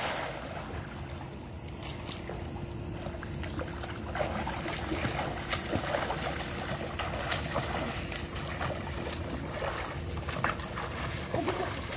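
Water splashing and sloshing in a swimming pool as a swimmer strokes across it: irregular small splashes from the arm strokes over a steady wash of moving water, with a faint steady hum beneath.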